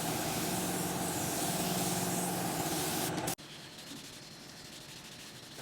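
Steady compressed-air hiss over a steady motor hum, as from an air tool running in a body shop. It cuts off abruptly a little over three seconds in, leaving a much quieter background.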